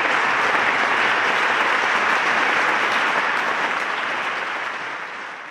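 Congregation applauding, a steady dense clapping that tapers off near the end.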